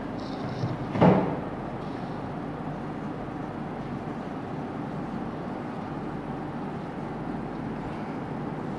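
Steady background rumble and hiss, with a single thump about a second in and faint squeaks of a marker writing on a whiteboard near the start.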